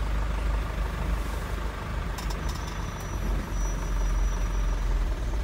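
Truck engine and cab noise heard from inside the cab as the truck drives slowly: a steady low drone. A few light clicks come about two seconds in, followed by a faint thin high whine.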